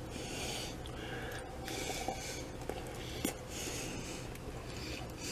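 A person chewing a mouthful of shepherd's pie and breathing through the nose, soft hissy breaths every second or two, with a single faint click about three seconds in.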